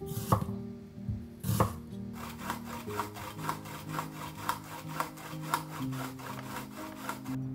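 A kitchen knife cuts through an onion onto a wooden cutting board twice. Then an onion half is rubbed back and forth over a grater set on a plastic container, a rapid rhythmic rasping of several strokes a second.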